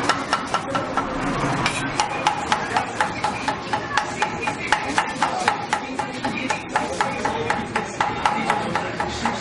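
Rapid rhythmic chopping of food with a knife or cleaver on a cutting board, about four strokes a second.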